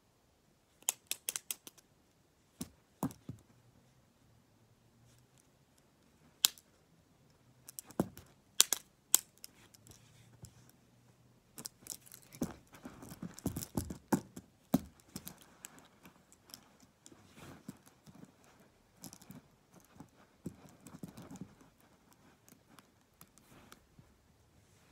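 Plastic gel pens clacking and tapping against each other in sharp clicks, a quick run of them about a second in and more scattered after, with handling rustle in between.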